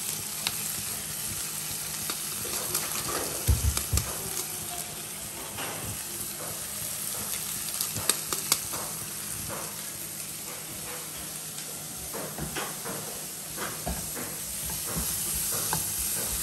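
Chopped onions and tomatoes sizzling steadily in coconut oil in a nonstick wok, with a wooden spatula now and then scraping and tapping against the pan in short clicks.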